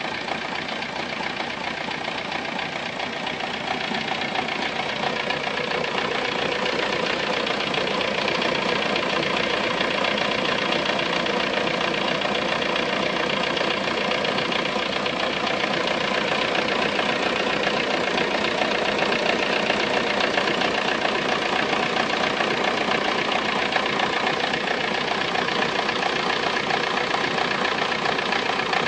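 Volkswagen Golf 3 engine idling steadily, a little louder after the first few seconds. This is the strange engine noise that its owner asked to have identified.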